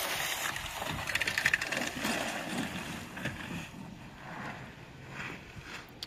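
Vehicle running while its homemade front-hitch snow plow pushes and scrapes through heavy, wet snow, with a quick rattle of clicks about a second in.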